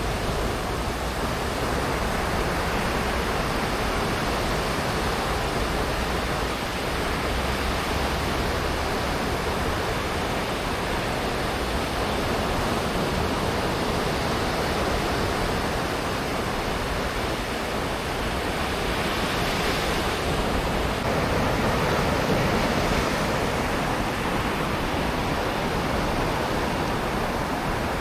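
Sea waves breaking and washing onto a sandy beach in a continuous surf, swelling a little about two-thirds of the way through.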